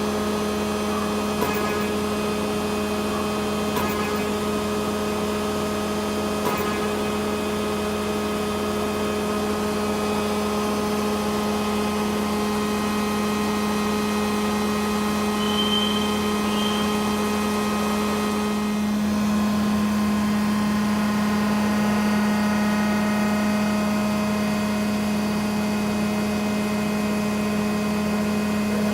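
Hydraulic power unit of a CNC tube bender running with a steady hum. There are a few light clicks early on, and about nineteen seconds in the hum changes tone and grows slightly louder.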